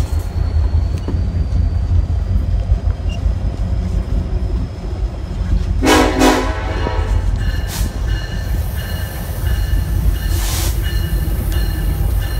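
EMD SD70ACe diesel-electric locomotive running with a steady low rumble, heard from the cab. Two short horn blasts sound in quick succession about six seconds in, and a brief rush of noise follows near ten seconds.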